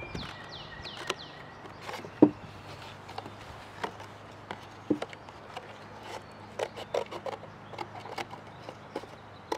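Scissors cutting through a thin cardboard Pop-Tarts box: a series of sharp snips and crunches at irregular intervals, the loudest about two seconds in.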